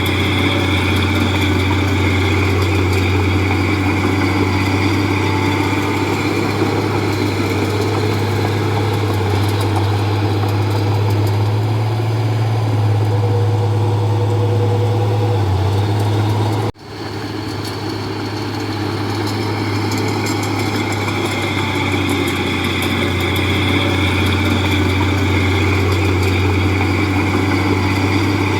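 Heavy diesel engine of earth-moving machinery running steadily with a deep hum. About two-thirds of the way through, the sound cuts out abruptly for an instant and then builds back up over a few seconds.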